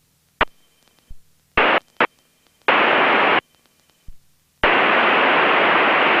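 Aviation VHF radio heard through the cockpit audio feed. Several short clicks of transmissions being keyed come first, then bursts of loud static hiss with no voice in them, a short one a little under three seconds in and a longer one from about four and a half seconds in.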